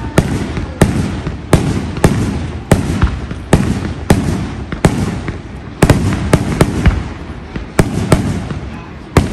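Fireworks going off in a rapid string of sharp bangs, about one and a half a second, each followed by a crackling rumble.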